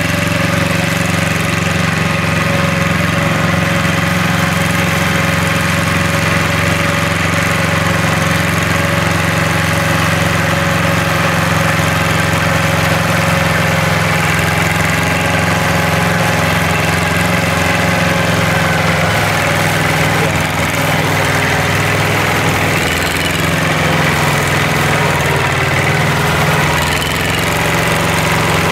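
Yanmar YM2700 small tractor's diesel engine running steadily at low speed while it tows a loaded trailer, its pitch wavering slightly in the second half.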